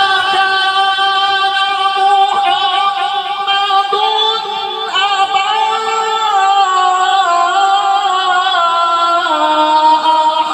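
Male qari reciting the Quran in melodic tajweed style, holding one long drawn-out high note that shifts slightly, then steps down in pitch several times near the end.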